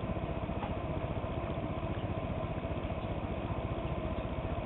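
The solar furnace's blower fan running, a steady hum with a fast, even pulse as it pushes warm air out at the vent.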